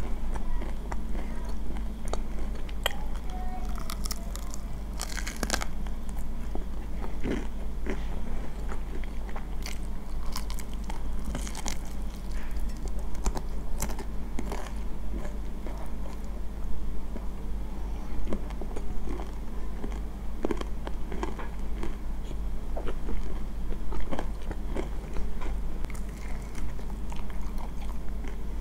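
Crunchy fried chicken drumstick being bitten and chewed: crisp crunches of the coated skin come in clusters, with softer chewing between.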